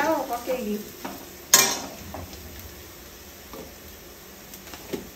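Vegetables frying in hot oil in a pan, with a steady sizzle and the scrape of stirring. About one and a half seconds in there is one sharp clatter, likely a spatula striking the pan, and a few faint knocks later.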